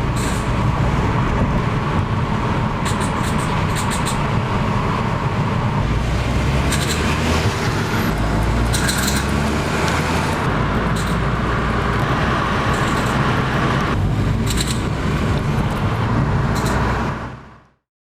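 Vauxhall/Opel 1.0-litre three-cylinder turbo petrol engine pulling under load, with brief high-pitched rattles breaking through again and again: pinking from low-speed pre-ignition, the heavy knock that can crack a piston or bend a conrod.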